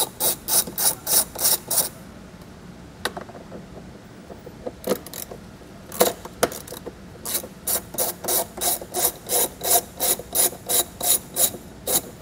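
A socket ratchet clicks as it backs out a 10 mm bolt holding an A-pillar trim panel. The clicking comes in rapid even runs of about three to four strokes a second, with a few scattered clicks in a pause in the middle.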